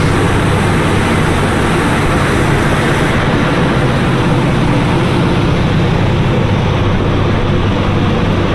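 Steady wind rushing over the microphone on the open deck of a fast-moving ferry, over the constant low drone of the ferry's engines and the churn of its wake.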